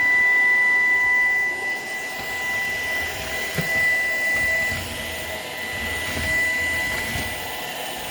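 Shark PowerDetect vacuum cleaner running with a steady high whine, its loudness rising and falling a little as it is worked over the floor.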